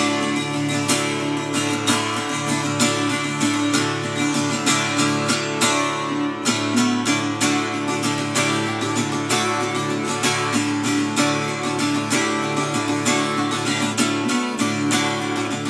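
Acoustic guitar strummed in a steady rhythm: the instrumental opening of a song, with chords ringing between strokes.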